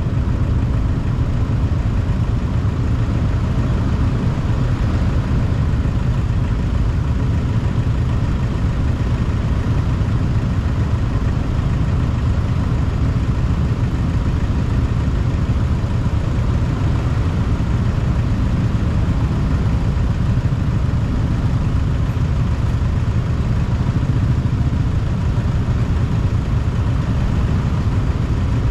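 An ordinary motorbike being ridden along a road: the engine runs with a steady, low rumble of road noise, neither revving up nor slowing down.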